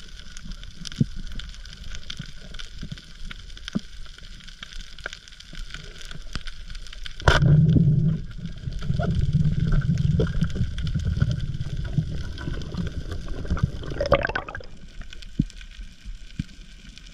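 Underwater on a reef, a constant faint crackle of small ticks, then about seven seconds in a sharp crack as the band-powered speargun fires. Loud low water rushing follows for several seconds, with a brief burst near the end before it settles.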